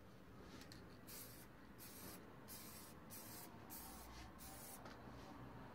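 Aerosol can of clear lacquer spraying in about seven short, faint hissing spurts, starting about a second in: a first coat of clear varnish going onto a plastic tail-light lens.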